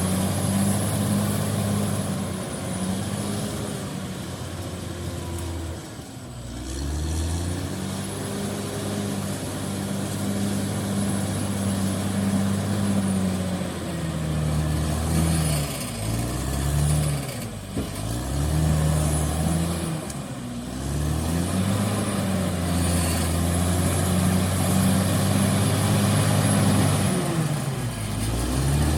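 Caterpillar D6R XL bulldozer's diesel engine working steadily, its note dropping and climbing back several times as the load and throttle change. A faint high-pitched whine rides over it on and off.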